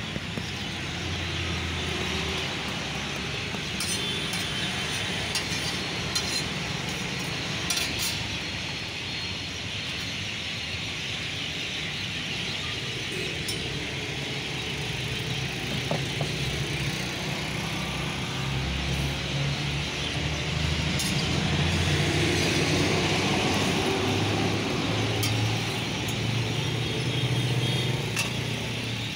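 Egg omelette and oil sizzling on a flat iron griddle, with a few sharp clinks of a metal spatula. A low rumble of street traffic runs underneath.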